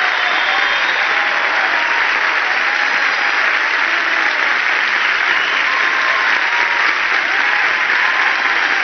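Large theatre audience applauding steadily, with a few scattered shouts mixed in.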